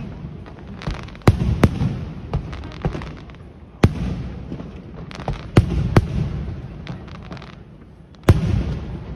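Aerial fireworks bursting in a series of sharp bangs, about six big ones spaced one to two seconds apart, with smaller crackles and a rumble between them.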